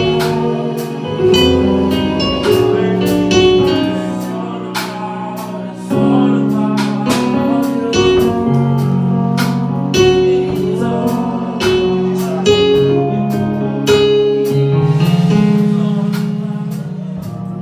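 Slow worship music on keyboard, starting abruptly: held chords under a line of struck notes.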